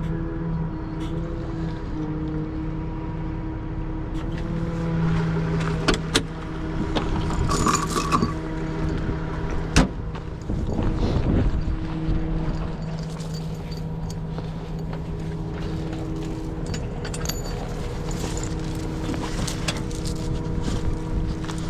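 Tow truck engine running steadily, its pitch shifting slightly a few times, while the wheel lift is being positioned. There are several sharp metal clanks in the middle stretch, the loudest about ten seconds in.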